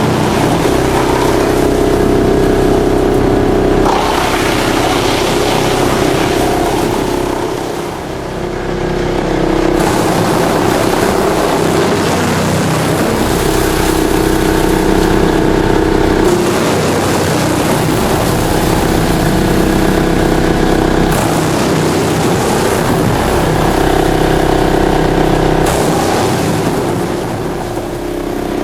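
Drum wood chipper running, a loud, continuous engine-like hum that shifts in pitch and level several times, dipping briefly about eight seconds in and again near the end.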